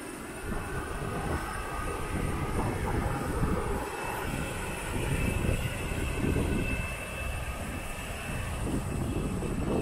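Wind buffeting the microphone in uneven gusts over a steady high whine from a parked jet airliner on the airport apron.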